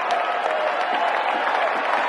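Stadium crowd ambience: a large crowd's many voices blended into a steady din, with scattered claps and shouts.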